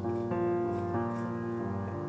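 Background piano music, a slow run of sustained notes.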